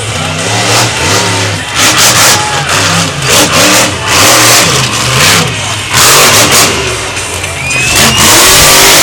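Monster truck's supercharged V8 revving hard again and again, its pitch rising and falling, very loud with the hardest surges in the second half.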